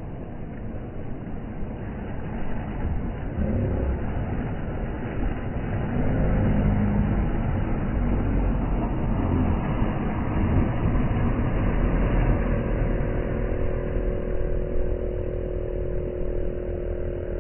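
Boat outboard motors running, getting louder about six seconds in, with a steady droning hum joining about twelve seconds in.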